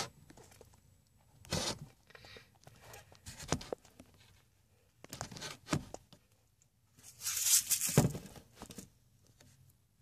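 Intermittent rustling and scraping noises: a few short bursts, then a longer, louder rustle about seven to eight seconds in.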